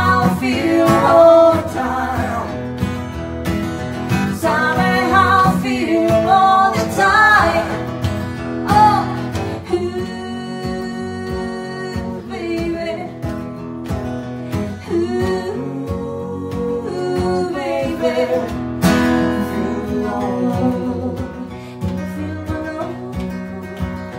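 Acoustic guitar played by hand while a woman sings the lead vocal, an unplugged live song.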